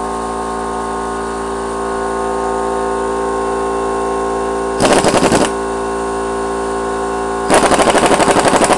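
Central Pneumatic Earthquake 1/2-inch air impact wrench hammering in two bursts, a short one about halfway through and a longer one near the end, run on its power setting two with the socket held back by a gloved hand. A steady hum lies under it.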